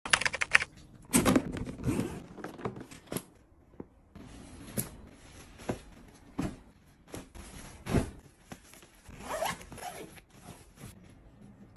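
Zippers on fabric packing cubes being pulled, in short irregular runs, with clothes and fabric rustling and a few louder knocks as the cubes are handled.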